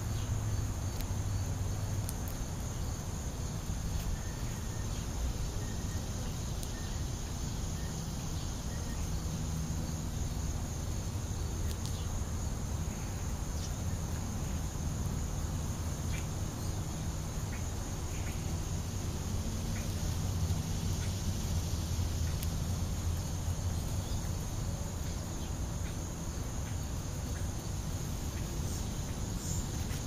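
Insects chirring steadily in a high, continuous trill, over a low rumble and a few faint scattered ticks.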